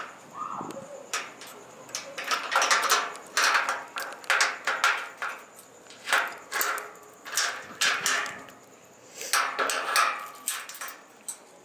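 A brief meow from the cat at the start, then a string of sharp metallic knocks and clattering, about a dozen over several seconds: the barred metal door grille being rattled and handled.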